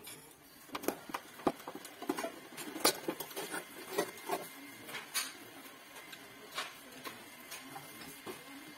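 Irregular clicks, taps and scrapes of the metal burner cap and ring of a Modena built-in gas hob being pried at and lifted out by hand, a sharp click every second or so, thinning out over the last couple of seconds.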